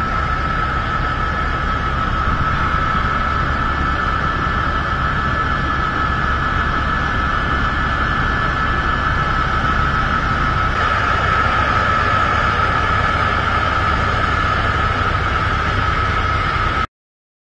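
Twin turboprop engines of a Canadair CL-415 water bomber running steadily with a high whine over a low rumble and rushing noise, as it skims the water to scoop its load. The sound cuts off abruptly near the end.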